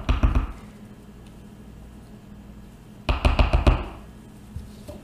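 Two quick runs of hard taps and knocks from soap-making tools, a spatula and pouring cup knocking against the cup and table, one at the start and one about three seconds in.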